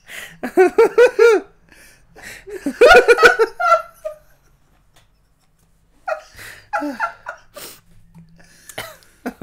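Two men laughing hard, in loud bursts of quick ha-ha pulses over the first four seconds. A brief quiet stretch follows around the middle, then lighter laughter near the end.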